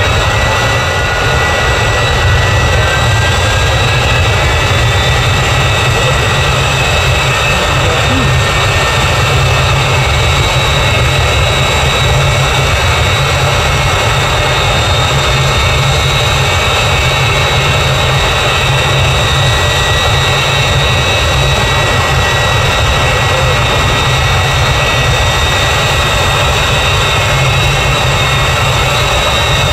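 Jet engine of a jet-powered drag truck running steadily at the start line: a loud, high turbine whine over a deep rumble, the whine climbing a little in pitch in the first couple of seconds.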